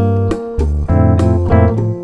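Instrumental background music with bass and keyboard over a steady beat.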